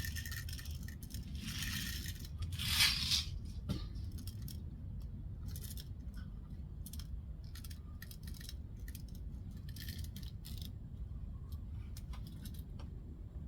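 Copper-coated BBs being loaded into a Daisy Powerline 1200 CO2 pistol by hand: a string of small, sharp metallic clicks and ticks. A brief rustle of handling comes just before the clicks, about three seconds in.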